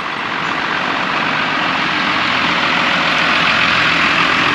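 Idling engine of an Iveco-Ford Cargo lorry, a steady low hum under a dense hiss, growing steadily louder.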